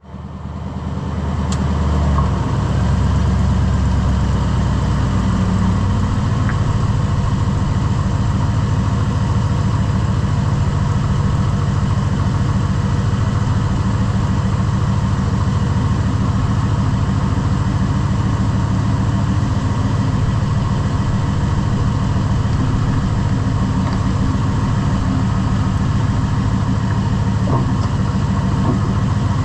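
Lifted truck's engine running steadily, with a few faint knocks near the end.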